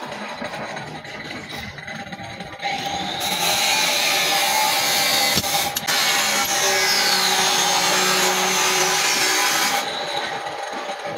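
A power tool working the steel of a saw blade: a loud, dense cutting noise starts about two and a half seconds in and stops near the end. Before and after it, a quieter machine runs steadily.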